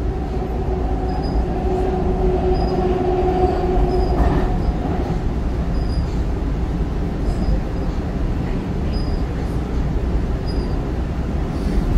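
Pittsburgh Red Line light-rail car running, heard from inside the car as it crosses a steel truss bridge: a steady low running noise, with a steady whining tone over the first four seconds or so that ends with a brief knock.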